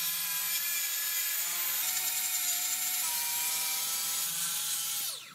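Festool plunge saw running along a guide rail, cutting through a white-coated multiplex board with a steady whine. Near the end it is switched off and its pitch falls as the blade spins down.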